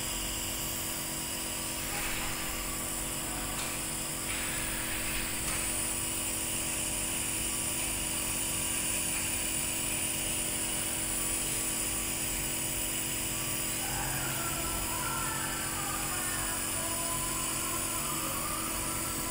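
Compressor nebulizer running with a steady motor hum and hiss as it turns the medicine into mist during an inhalation treatment.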